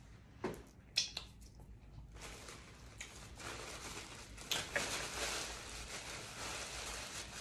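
Crinkling and rustling of something crisp being handled by hand, after a few sharp clicks about half a second and a second in; the crinkling begins about two seconds in and goes on with a few louder crackles.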